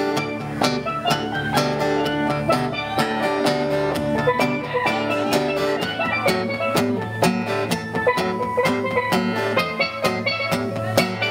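Live band playing an instrumental break: a guitar solo, with some notes sliding in pitch, over a steady beat.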